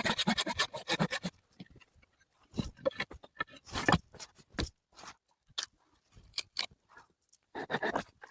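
Irregular scrapes, rubs and knocks, with a fast run of rasping strokes in about the first second.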